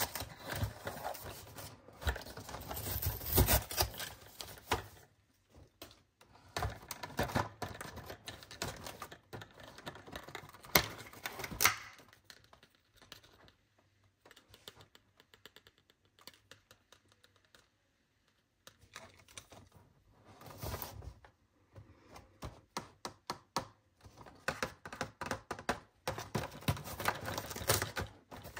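Long acrylic fingernails tapping, scratching and picking at a cardboard advent calendar box, in quick flurries of sharp clicks like typing. About halfway through there is a quieter stretch of a few seconds before the tapping picks up again.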